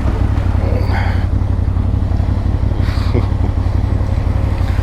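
CF Moto CFORCE 1000 ATV's V-twin engine running steadily under load as it pushes through a muddy washout, with two short bursts of noise about one and three seconds in.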